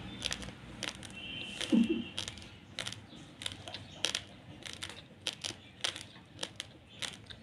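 Raw basmati rice being chewed: a string of sharp, irregular crunches, a few a second. A brief low sound about two seconds in is the loudest moment.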